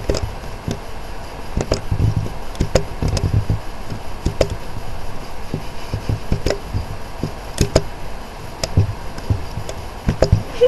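Irregular clicks and knocks, a few each second, mixed with low thuds.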